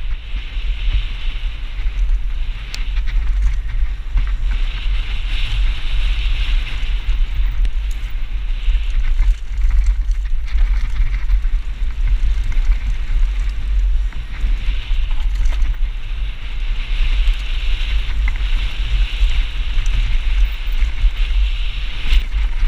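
Wind buffeting an action camera's microphone on a fast mountain-bike descent, a heavy steady rumble, over the hiss of knobby tyres rolling on a dry dirt trail. The hiss swells and eases with the terrain.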